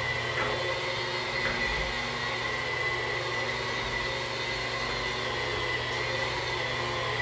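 Handheld electric rotary polisher running steadily with a constant high whine, its white 3M Super Shine pad buffing hard-water spots off shower glass.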